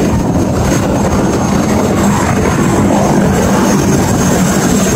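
Helicopter running on the pad: steady turbine and rotor noise with a constant high whine, mixed with the heavy rumble of rotor downwash buffeting the microphone.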